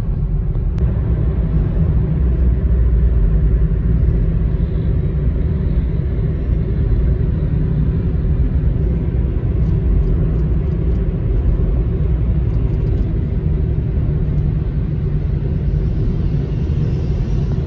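Road noise heard from inside a moving car's cabin: a steady low rumble of engine and tyres. Near the end a higher hiss rises as a truck passes alongside.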